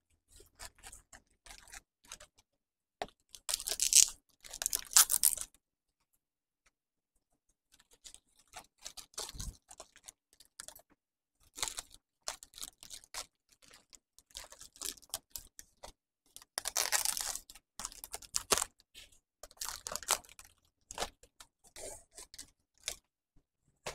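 Wrapping paper rustling and crinkling as it is folded and pressed around a flower bouquet by hand, in irregular bursts. The loudest rustles come about four to five seconds in and again around seventeen seconds, with a brief pause near six seconds.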